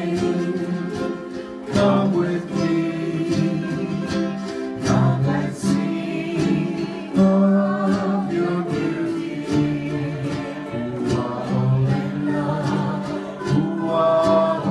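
Several ukuleles strummed together in a steady rhythm while a woman sings.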